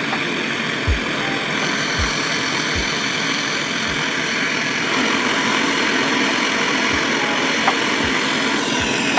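Steady loud rushing noise over background music, with a low thump about once a second.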